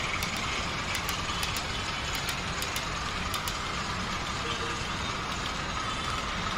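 Model railway train running on the layout: a steady mechanical running noise with scattered light clicks.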